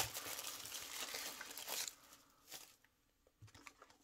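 Plastic shrink wrap crinkling as it is pulled off a booster box, for about two seconds, then a few faint handling sounds.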